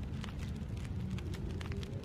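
A pot of stew bubbling as it cooks: a steady low rumble with scattered small pops.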